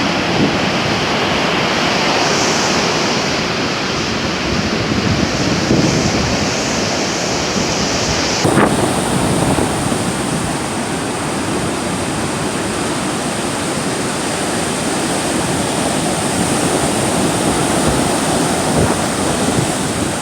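Heavy surf breaking and washing on a sandy beach, rough from the strong wind still blowing after a typhoon, with wind buffeting the microphone.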